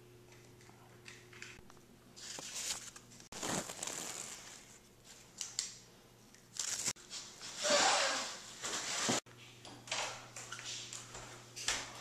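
Plant leaves rustling and brushing right against the microphone as a hand pushes through them, in a series of crinkly swishes, several of which break off abruptly.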